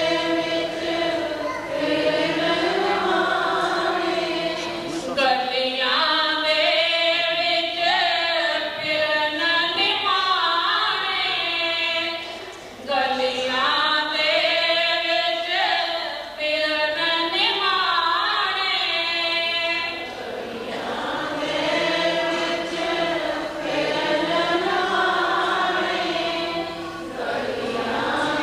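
A group of voices singing a slow devotional chant, with long held notes that rise and fall in phrases.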